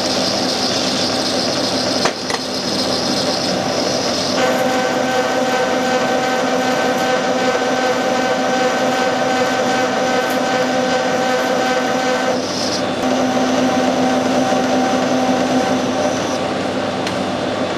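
Metal lathe running under power, its gear train and motor giving a steady whine of several tones over a mechanical hum, as a shoulder is turned down on the job. A sharp click comes about two seconds in, and the set of tones shifts about four seconds in and again about twelve seconds in.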